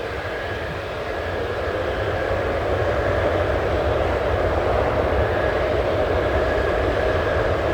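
Twin-engine jet airliner's engines running with a steady whine and rushing noise, growing louder over the first couple of seconds and then holding.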